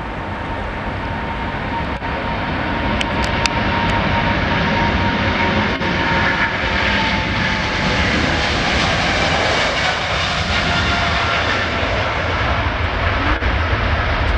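Boeing 777-300ER's twin GE90 turbofan engines at takeoff thrust during the takeoff roll: a loud, steady jet roar that builds over the first few seconds, with a whine that slowly drops in pitch as the aircraft goes past.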